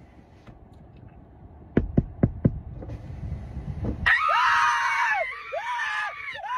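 Four quick knocks of knuckles on a car's side window about two seconds in. Then, from about four seconds in, a woman screams at the top of her lungs, and a man screams back at her.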